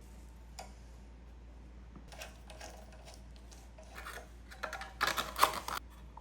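Irregular light clicking and rattling of hand tools and small metal parts, as a motor is refitted to an air compressor. The clicks start sparse and grow busier, with the loudest clatter about five seconds in.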